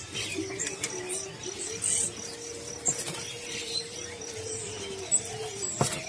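Many caged birds calling at once: a fast, evenly repeated high chirp runs under scattered short calls and a long, lower held note in the middle. A sharp click comes near the end.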